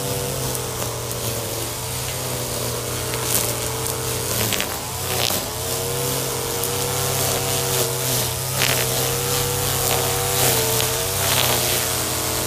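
Gas-powered string trimmer running as it cuts grass, its engine speed rising and falling again and again, with a few short sharp clicks.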